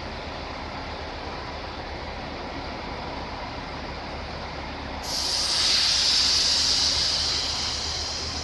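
Koleje Dolnośląskie multiple unit pulling slowly into the platform with a steady low running hum, then about five seconds in a sudden loud hiss of compressed air from its air brakes as it comes to a stop, tailing off near the end.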